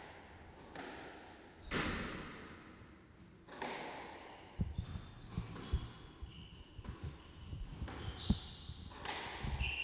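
Squash ball strikes, sharp and echoing in the enclosed court, one to two seconds apart. Players' shoes thud on the wooden court floor, with short high squeaks of shoe soles in the second half.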